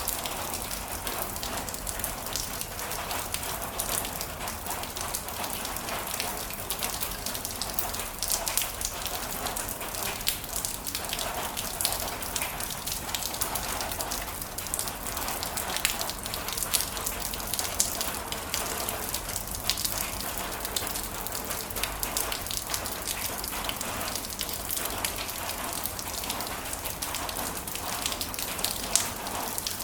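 Heavy rain falling steadily, a dense hiss of drops with scattered louder individual drop hits.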